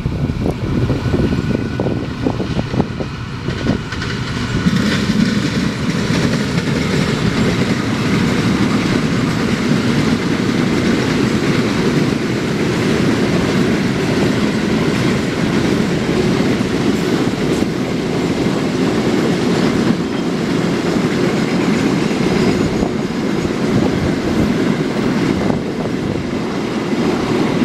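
Container freight train's flatcars rolling past at speed: a steady, loud rumble and rattle of steel wheels on the rails, rising about four seconds in and holding steady, with a few faint clicks.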